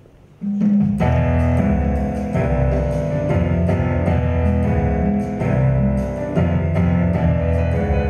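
An instrumental backing track starts abruptly about half a second in, with a moving bass line, sustained chords and light regular percussion ticks. This is the accompaniment for a vocal number before any singing comes in.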